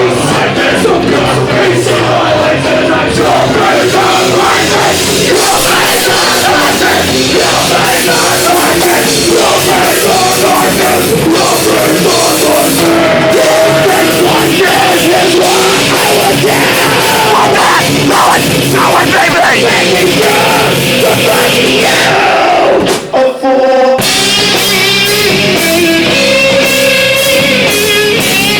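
A live heavy rock band playing loud, with two brief drop-outs about 23 seconds in before the band comes straight back in.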